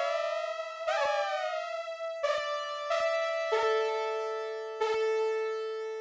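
Teenage Engineering OP-1 Field synthesizer playing sustained, bright chords, changing to new notes about once a second. The first two changes swoop in pitch before settling. The last chord, about five seconds in, rings on and starts to fade.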